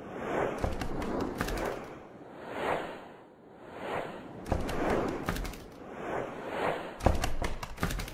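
Intro sound effects: a string of whooshes that swell and fade about once a second, with sharp clicks and low thuds at several points.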